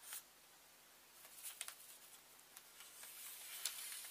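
Faint scratchy strokes of a felt-tip marker drawing on paper, several short strokes and a few longer ones.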